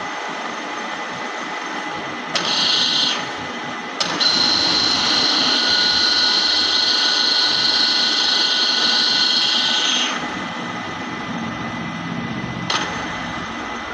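Dufour 221 universal milling machine running, a steady mechanical whir. It briefly gets louder about two and a half seconds in, then from about four seconds to ten seconds runs louder with a high whine, which stops abruptly.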